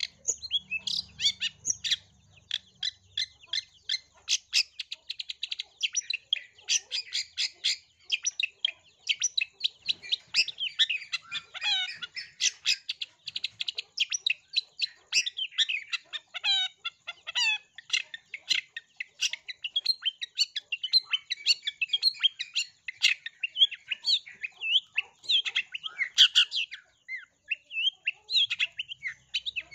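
Long-tailed shrike singing a fast, continuous stream of short chirps and squeaky notes, a mimicking song filled with rapid-fire imitations of Eurasian tree sparrow chirping.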